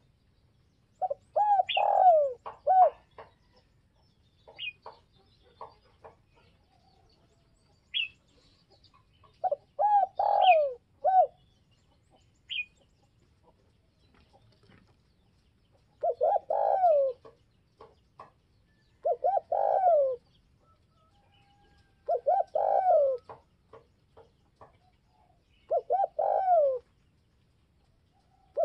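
Spotted dove cooing: about six repeated coo phrases, each a second or so long and falling in pitch at the end, spaced a few seconds apart. It is a strong caller of the kind kept to draw in wild doves. Short high chirps of small birds come between the first few phrases.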